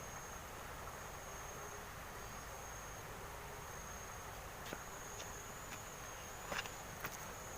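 Insects, crickets by the sound, keeping up a faint, steady high-pitched trill, with a few soft knocks near the end.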